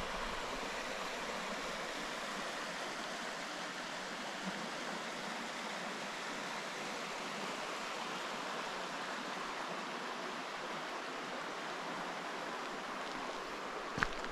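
Steady, unbroken rush of flowing water, with a couple of sharp clicks near the end.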